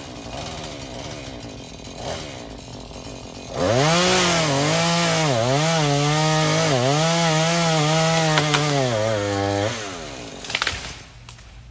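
Two-stroke chainsaw idling, then opened to full throttle about three and a half seconds in and held there for about six seconds, its pitch dipping again and again as it bogs under load cutting through a limb, then dropping back to idle. A short crackle follows about a second later.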